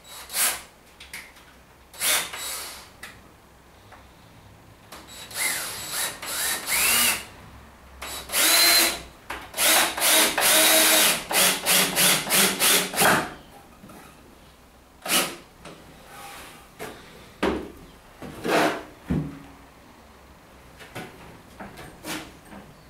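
Cordless drill-driver driving long wood screws into thick timber, in short runs of the motor. The longest run comes in the middle and ends in a string of quick trigger pulses as a screw is driven home. A few brief bursts follow.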